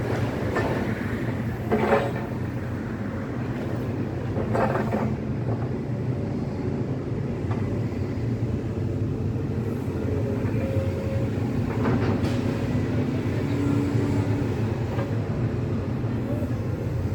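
Heavy tracked excavator running steadily as it works on the demolition, with a few sharp clatters of rubble and metal about 2 s, 5 s and 12 s in.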